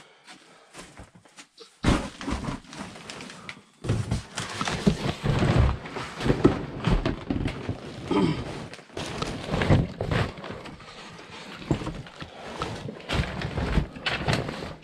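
Cardboard boxes and loose debris being rummaged through: irregular rustling, scraping and knocks, getting much louder about two seconds in.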